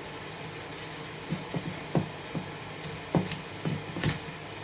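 Kitchen knife chopping through fish onto a cutting board: a run of irregular knocks starting about a second in, over a steady low hum.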